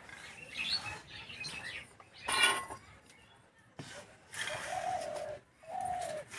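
A dove cooing twice near the end, with small birds chirping. About two and a half seconds in, a short scraping rustle, which is loudest.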